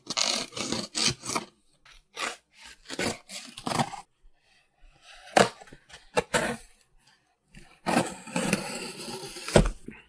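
Packing tape on a cardboard shipping box being slit and torn open, in a series of short scraping rips, then a longer rasping tear near the end and a dull thump as the cardboard is handled.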